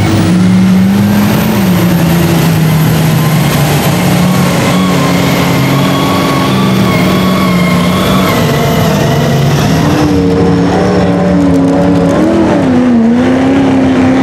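Lifted mega mud truck's diesel engine running hard under load through deep mud, pouring black exhaust smoke. About ten seconds in, another mega truck's engine takes over, revving up and down.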